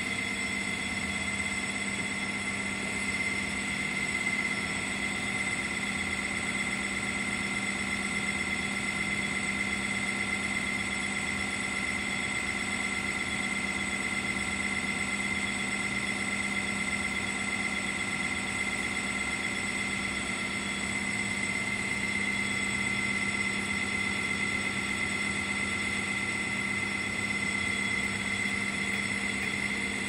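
Steady machinery hum with a constant high whine, unchanging throughout.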